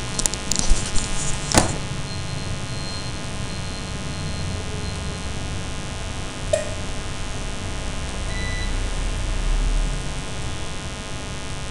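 Steady buzzing hum and hiss of electrical background noise, with a few sharp clicks in the first two seconds and another about six and a half seconds in, as windows are closed with the mouse.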